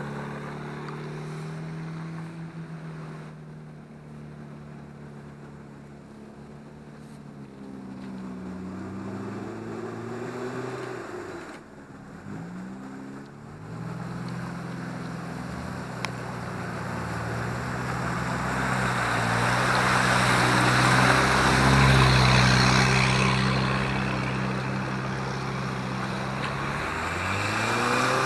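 Off-road 4x4's engine running and revving up and down as it drives through a bog. A rush of water and mud noise swells in the second half, loudest about two-thirds of the way in.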